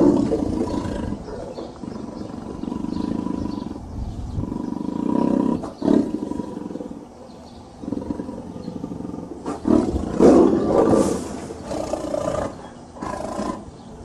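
Tiger growling and roaring in a string of rough calls. The loudest roars come at the start and about ten seconds in.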